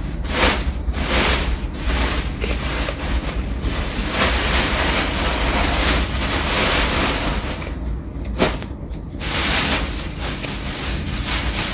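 A Zippo lighter's box being handled close to the microphone: loud rustling and rubbing, with a brief lull about eight seconds in.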